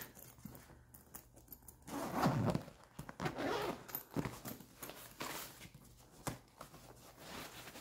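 A zipper being pulled open along the side pocket of a quilted fabric weekender bag, in several short rasps, with the fabric rustling as it is handled.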